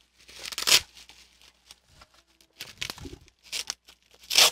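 Bubble wrap and plastic packaging crinkling and tearing as it is pulled open by hand, in short bursts, the loudest about half a second in and at the very end.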